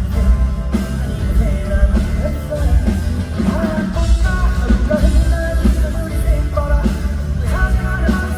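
Live band music: an upbeat rock song with a man singing.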